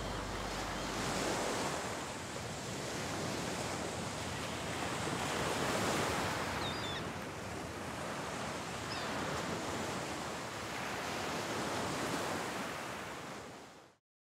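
Ocean surf washing onto a beach: a steady rushing noise that swells and eases every few seconds, with a few faint high bird calls. It fades out just before the end.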